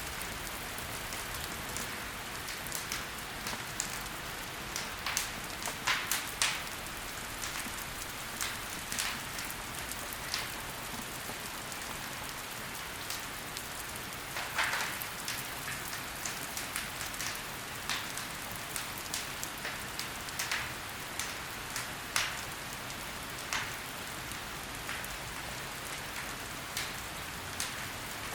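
Logs burning in a fireplace: a steady soft hiss with frequent sharp crackles and pops at irregular intervals.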